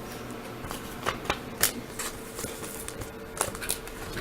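Trading cards and thick cardboard filler cards being handled and flipped through, giving scattered light clicks and rustles.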